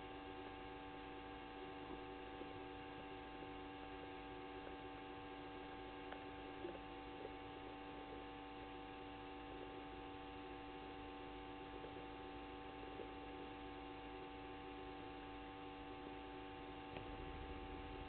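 Faint, steady electrical hum made of several held tones, with a faint click about six and a half seconds in.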